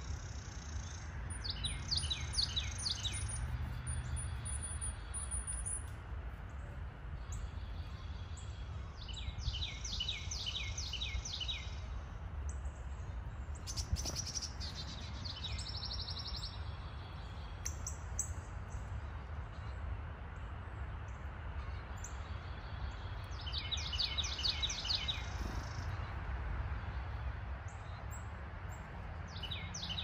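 Songbirds in woodland: one bird sings a phrase of quick downslurred whistles four times, the last starting near the end, while another gives thin high repeated notes during the first few seconds. A steady low background rumble runs underneath, with a single short tap midway.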